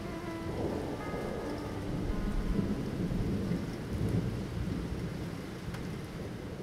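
Steady rain with thunder rumbling; the low rumble swells around the middle and eases off near the end.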